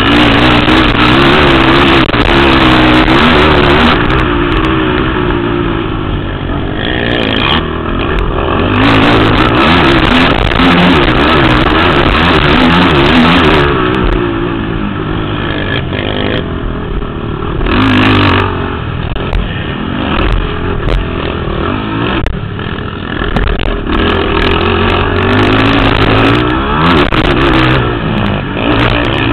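Racing ATV quad engines revving hard as the machines race past, pitch climbing and dropping with throttle and gear changes, several engines overlapping. The sound swells and fades as riders come near and move away.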